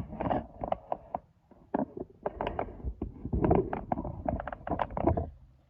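Irregular clatter of knocks and rattles from a small metal toolbox being handled, several sharp strikes a second with a short pause about a second and a half in.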